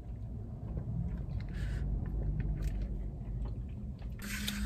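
Two people sucking and slurping on straws from small cups, with small wet mouth and chewing clicks, over the low steady rumble of a car cabin. A short, louder breathy sound comes near the end.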